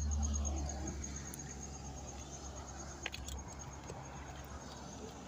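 Low rumble on the microphone, strongest in the first second and then fading, behind a faint, high, evenly pulsing insect trill. A few faint clicks come about three seconds in.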